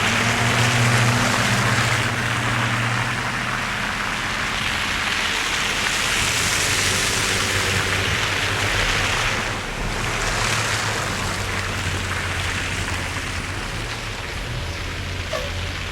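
Road traffic in a snowstorm: tyres hissing through wet slush, swelling as a vehicle passes about halfway through, over the steady low hum of an idling engine.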